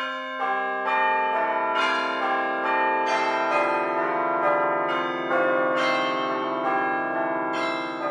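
Bells struck one after another in a slow, uneven sequence, each note ringing on under the next.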